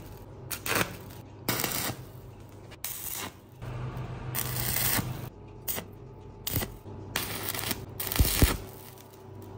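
Metalworking on a steel spark plug in a vise: an angle grinder cutting and an electric welding arc crackling, heard as a string of short rasping bursts broken up by quick cuts, with the loudest pair about eight seconds in.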